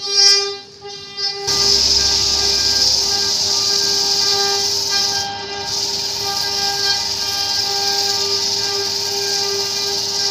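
Wood lathe running with a steady whine, and from about a second and a half in, a hand chisel cutting into the spinning wooden disc with a steady hiss.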